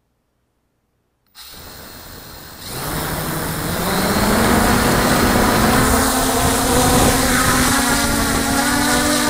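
Camera drone's electric motors spinning up for takeoff: a quiet hiss starts suddenly about a second in, then a loud whine that climbs in pitch and levels off as the drone lifts off.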